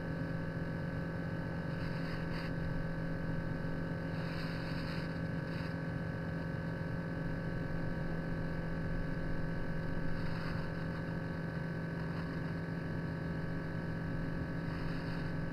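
Steady hum of a small incubator's circulating fan motor, with a few faint high peeps now and then, typical of chicks calling from inside eggs just before they hatch.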